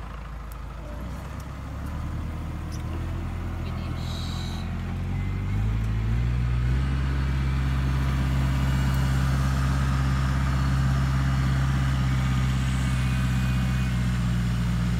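Tractor engine running, growing louder and stepping up in pitch about six seconds in, then holding steady.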